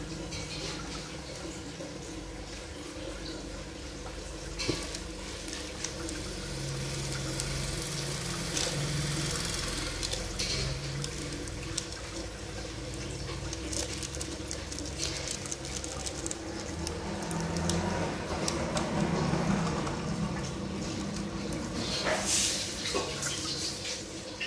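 Aquarium filter outflow pouring into the tank water, a steady splashing and bubbling over a faint steady hum, with a few brief clicks.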